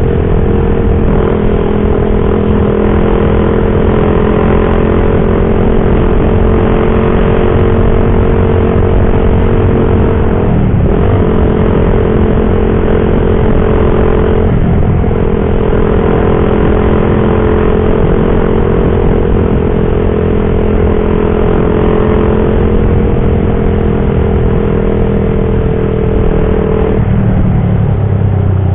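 Suzuki Satria FU single-cylinder four-stroke engine, bored out to 200cc, running steadily as the motorcycle is ridden. Its note breaks briefly twice, about eleven and fifteen seconds in, and drops lower near the end.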